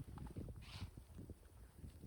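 Faint, rapid, irregular low knocks and thuds of a tent being taken down, with a brief rustle a little under a second in.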